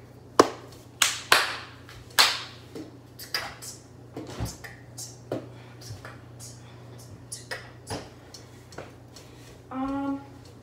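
Scattered knocks, clicks and clatter of kitchen handling over a steady low hum, with a short pitched tone near the end.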